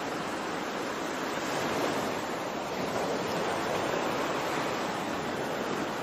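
Ocean waves washing in a steady surf, swelling slightly in the middle.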